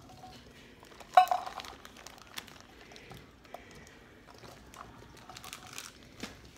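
Fresh cranberries being shaken out of a metal measuring cup onto fudge in a glass baking dish: scattered light taps and clicks, with one sharper, briefly ringing clink about a second in.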